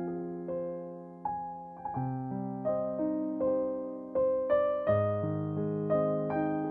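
Background piano music: a gentle, slow melody of single struck notes over held chords.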